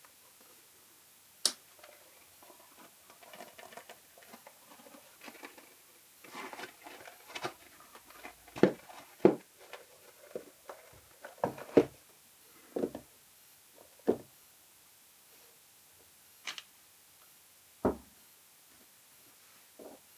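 Handling noise from a camera filter kit being unboxed: scattered clicks and knocks with light rustling, busiest in the middle and thinning out toward the end.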